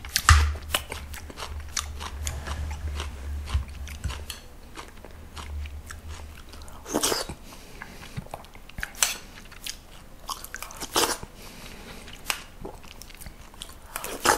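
Close-miked eating of gomtang, beef bone soup with rice: chewing and slurps from a spoon, with short sharp clicks of the metal spoon against the bowl scattered throughout.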